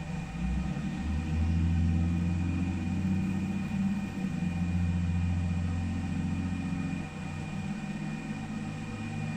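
Laser back-glass removal machine running: a low hum with faint steady high tones above it. The hum swells about a second in and eases about seven seconds in.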